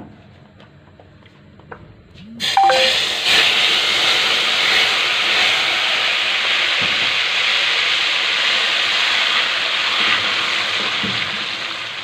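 Hot cooking oil poured over a pot of thick daleem as a baghaar tempering, sizzling loudly as it hits from about two and a half seconds in and easing a little near the end.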